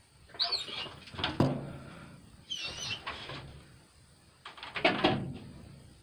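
Three short bursts of animal scuffling with high, wavering squeals and knocks, one sharp knock about a second and a half in: a dog tangling with a cornered raccoon.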